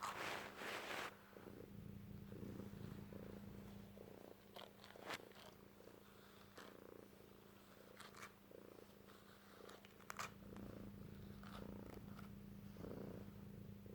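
Domestic cat purring steadily, in an even in-and-out rhythm, with a few short rustling noises, the loudest in the first second.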